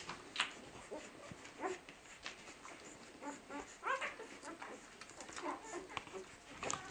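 Week-old flat-coated retriever puppies squeaking and whimpering while they suckle: many short, high little cries, some bending in pitch, scattered irregularly throughout.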